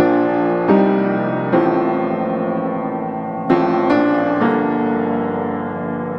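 Background piano music: sustained chords, with a new chord struck every second or so and left to ring.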